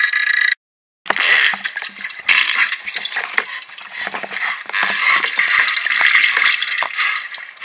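Comic diarrhea sound effect: a wet, crackling, spluttering gush that stops dead for about half a second near the start, then runs on in uneven surges.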